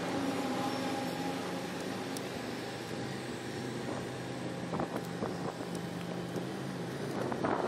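Harley-Davidson touring motorcycle's V-twin engine running steadily at a slow crawl, with a few light clicks about five seconds in and again near the end.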